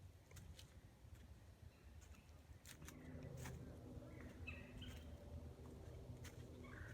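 Near silence on a woodland trail: a faint low rumble with a few scattered light ticks, a faint steady hum coming in about three seconds in, and two brief faint bird chirps in the second half.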